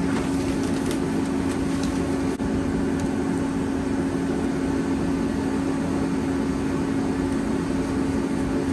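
Power sander running steadily with a constant motor hum, sanding body filler (Bondo) smooth on a car's body panel.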